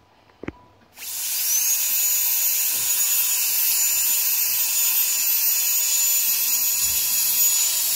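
A short click, then a disposable high-speed dental drilling handpiece starts up about a second in: a high whine that rises quickly to a steady pitch over a loud hiss, running free at full speed.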